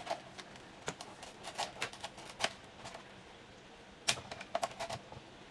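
Irregular light clicks and taps of a small hard item being handled and fiddled with, some coming in quick pairs and a cluster of them near the end.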